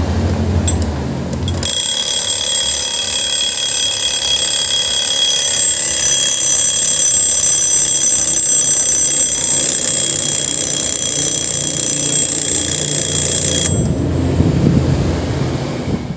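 A 1930s Smiths alarm clock ringing its alarm: a steady, high ringing that starts about two seconds in, goes on for about twelve seconds and cuts off suddenly.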